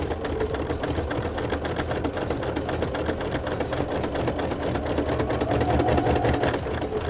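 Baby Lock sewing machine with a Ruffling Foot (SA122) stitching steadily at speed, the foot set to gather one tuck with every stitch: a fast, even rattle of stitches over the motor's hum that stops suddenly at the end.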